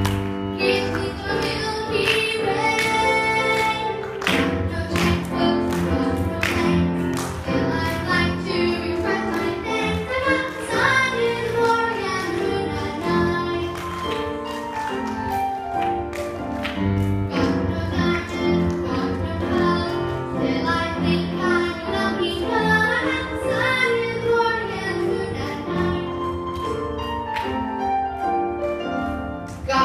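A girl singing a song into a handheld microphone, her voice amplified, over instrumental accompaniment.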